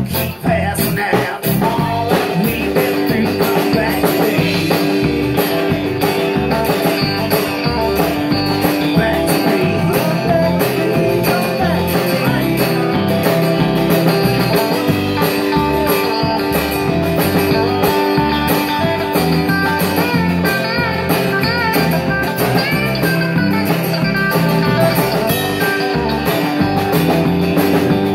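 Small live rock band playing: strummed acoustic guitar, electric bass and a Ludwig drum kit, keeping a steady beat at an even, loud level.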